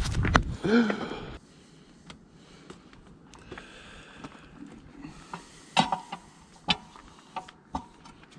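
Long steel tire iron scraping and rubbing against the steel rim of a wheel loader tire while prying at the bead, with three sharp metal clinks in the second half. A short, louder muffled noise comes at the very start.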